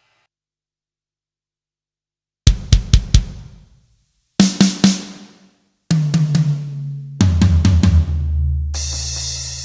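Sampled acoustic drum kit from EZdrummer 3's Big Stage EZX playing drum fills. After about two and a half seconds of silence come two short groups of quick snare and drum hits. Then ringing toms step down from higher toms to low floor toms, with a cymbal crash near the end.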